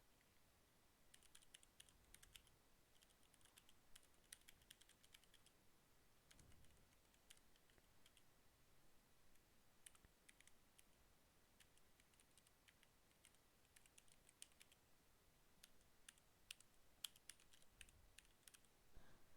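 Redragon K552 mechanical keyboard with red switches being typed on: faint runs of rapid key clicks with short pauses between them.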